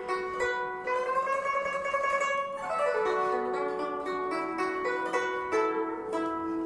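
Solo guzheng melody in plucked notes. About a second in, one long note is bent slowly upward and then slides down in pitch, followed by a run of single plucked notes.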